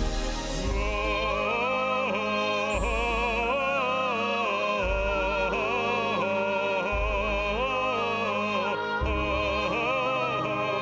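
Male operatic voice sustaining a wordless 'ah' with vibrato over a backing accompaniment, the bass notes changing about every two seconds.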